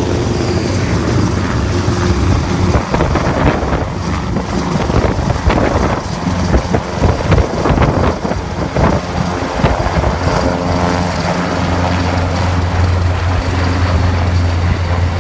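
Large rescue helicopter lifting off and climbing away overhead: turbine whine over the rotor's deep steady hum and chop, loud throughout, with the low hum swelling again near the end.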